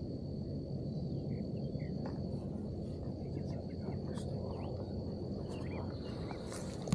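Field ambience: an insect's steady high-pitched trill over a low rushing noise, with a few short bird chirps.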